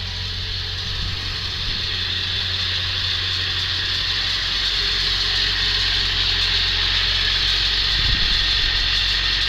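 Ford 7.3L Powerstroke turbo-diesel V8 running steadily, gradually getting louder, with a metallic rattle from under the truck. The owner suspects the flexplate or starter because the rattle comes and goes. There is a brief low thump near the end.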